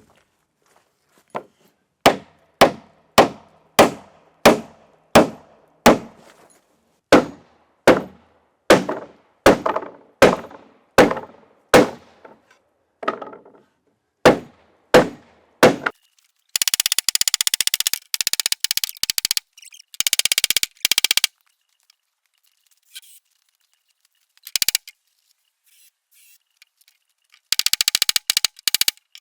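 Hammer blows on timber: about twenty steady strikes a little over half a second apart, each with a short ring. Then several seconds of rapid rattling bursts, and another short burst near the end.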